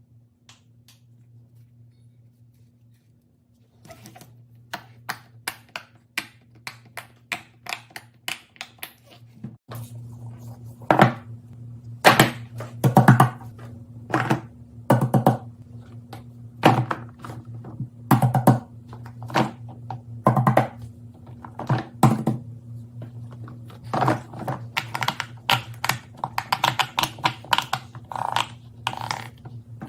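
Small plastic toys being handled and knocked against a hard surface. A quick run of light clicks starts a few seconds in, then louder irregular knocks and clusters of rapid clicks, over a steady low hum.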